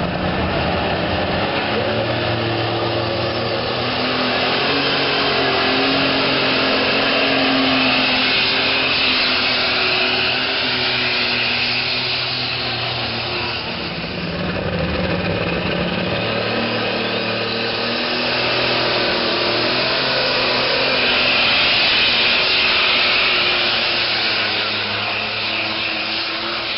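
Unlimited Super Stock pulling tractor's turbocharged diesel engine running flat out under load as it drags the sled, loud and continuous, with a high whine rising and falling over the engine note. The pitch shifts several times, with a short dip in loudness about halfway through.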